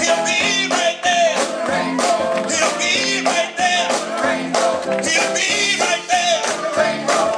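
Live gospel band music with a steady drum beat, guitar and a bending melody line.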